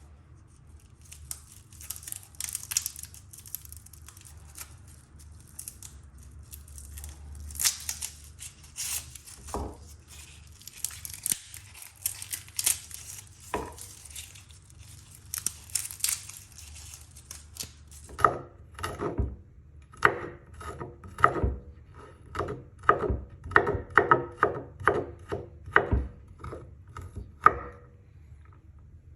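Kitchen preparation sounds: for the first two-thirds, crinkling and tearing of food packaging. Then a run of sharp knocks on a hard surface, a little over one a second, like handling or cutting food on a board.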